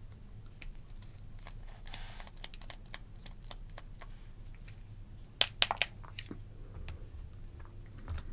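Small metallic clicks and ticks from a precision screwdriver bit working the tiny screws out of a Benchmade Bugout pocketknife's handle and from the screws being handled. A short run of sharper, louder clicks comes a little past halfway.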